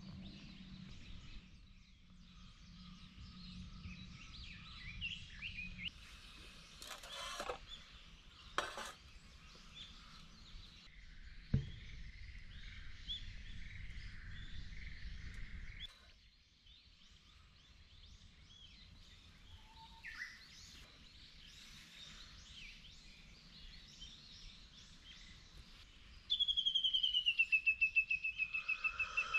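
Outdoor ambience with small birds chirping, a few faint clicks and one sharp knock. Near the end a much louder high tone sets in, pulsing rapidly and falling slightly in pitch.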